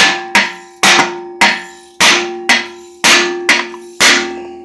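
Hammer blows on the aluminium case of a New Process 208 transfer case, nine sharp strikes about two a second, each ringing on with a clear metallic tone. The ring is the hollow sound of case halves that are starting to come apart but are not yet free.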